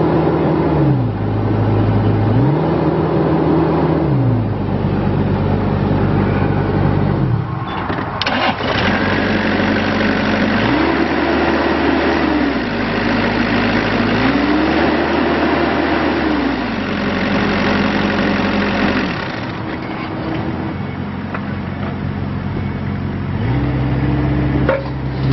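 The diesel engine of a Bobcat E26 mini excavator, with its revs raised and dropped several times, moving between idle and a higher speed. Through the middle of the stretch a rougher, noisier running sound lies over the engine.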